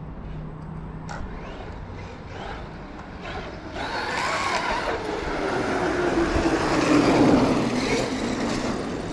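Traxxas X-Maxx electric RC monster truck driving on pavement. Its motor whine and tyre noise build up about four seconds in and are loudest near the end, while the whine falls slowly in pitch.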